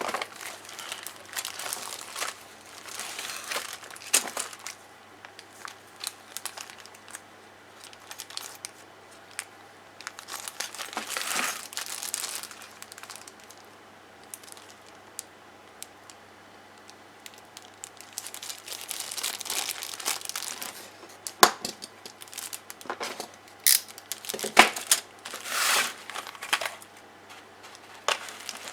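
Plastic packaging of a Tamiya Mini 4WD kit crinkling and tearing as the kit is unboxed, in irregular bursts with a few sharp clicks.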